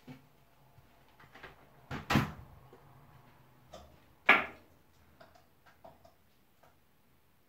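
Kitchen clatter as plates, pots and fittings are handled: a few knocks and clunks, the two loudest about two seconds in and just after four seconds, then several light clicks.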